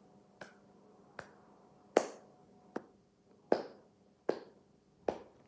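Seven sharp clicks at an even beat, about one every three-quarters of a second.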